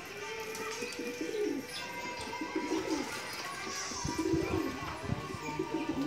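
Domestic pigeons cooing in a loft, several birds' low, warbling coos repeating and overlapping.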